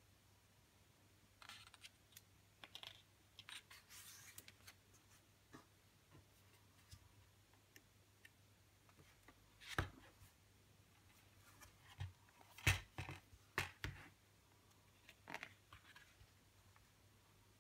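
Pages of a CD album's photobook being turned and handled by hand: soft paper rustles and slides, with a few sharper knocks of the hardcover digipak case about halfway through.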